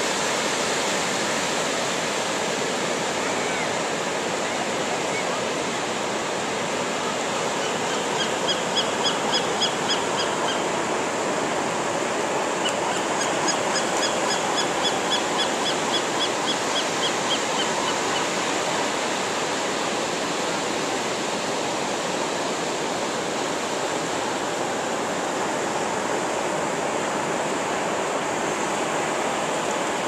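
Steady wash of shallow surf on a sandy beach. Over it are two runs of quick, high, repeated bird calls: a short run about eight seconds in and a longer one from about thirteen to eighteen seconds.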